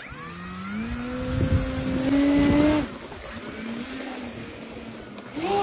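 Engine of a homemade model aeroplane in flight. Its buzzing pitch climbs steadily for nearly three seconds, then falls away suddenly as the throttle comes back. It runs on lower and quieter, then rises again sharply near the end.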